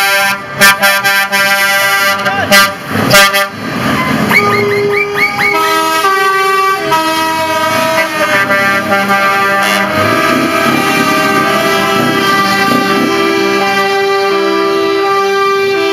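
Trucks' air horns sounding over engines, several tones held at once. A few sharp blasts come in the first few seconds. From about four seconds in there is a quick run of short notes, then long held tones that step from pitch to pitch.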